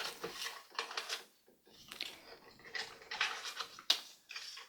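Irregular light clicks and rustling from handling a toy cash register and its paper play money.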